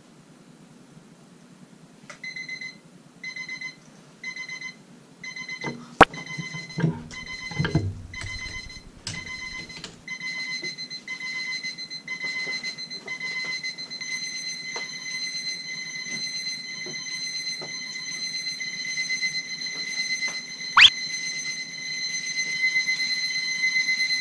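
Many electronic alarm clocks going off together, set to wake a sleeper: at first a single beep about once a second, then more and more alarms join until the beeping merges into a continuous, growing din. A couple of sharp knocks stand out, one about six seconds in and one near the end, with some low rustling around them.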